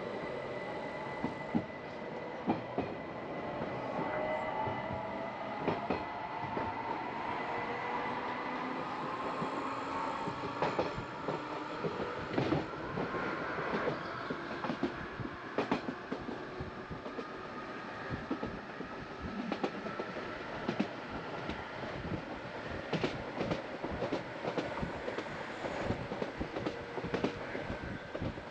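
Electric narrow-gauge Bernese Oberland Railway train running, heard from on board. A whine rises in pitch through the first half as the train gathers speed, over a steady rolling noise with repeated clicks and clacks of the wheels on the rails.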